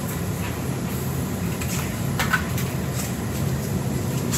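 Steady low hum of laboratory equipment, with a few faint knocks and clicks as metal lab gear is handled.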